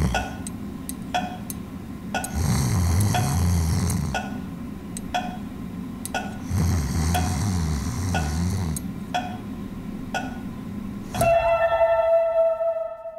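Sound-designed scene: a ticking about once a second runs throughout, broken by three passages of a fly's wings buzzing that rise and fall in pitch. About eleven seconds in, a bell-like chime strikes and rings away.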